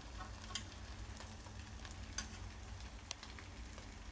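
Eggs frying in a hot frying pan: a steady, faint sizzle with a few small ticks and crackles scattered through it.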